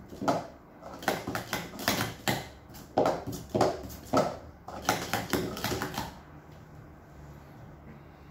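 Plastic sport-stacking cups clacking in a fast run of sharp clicks as they are stacked up into pyramids and down again. The clicks stop about six seconds in, when the cups are back in their stacks.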